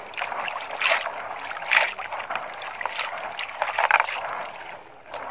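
Beans being washed by hand in a plastic basin of water: hands rubbing and stirring them, with the water sloshing and swishing in about four louder strokes roughly a second apart.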